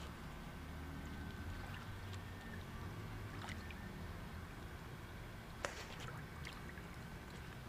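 Faint water movement in a garden fish pond under a low steady rumble, with one sharp click about five and a half seconds in.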